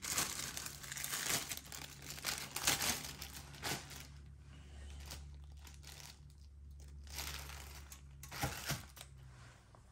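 Crinkling of food packaging being handled, in bursts through the first four seconds, then a steady low hum with a couple of light knocks near the end.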